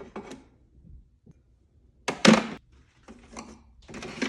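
A sharp knock about two seconds in, then softer clattering, from kitchen items being handled.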